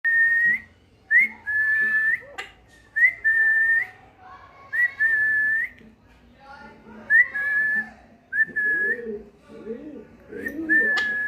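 Pet parrot whistling a series of about seven clear, high notes, each starting with a quick upward flick and then held steady for up to a second.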